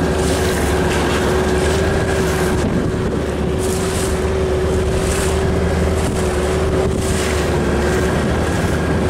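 A small dinghy's motor running at a steady speed, with a steady whine, water splashing against the hull and wind buffeting the microphone.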